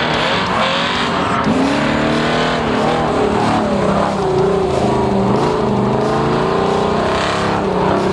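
Pickup truck's engine revving up and down hard through an autocross course, with tyres squealing in the turns.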